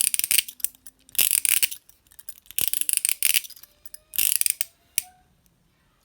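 ViperTech handcuffs ratcheting: the cuff's swinging bow is run through the lock's ratchet in four quick runs of clicks, each about half a second long, then a single click near the end.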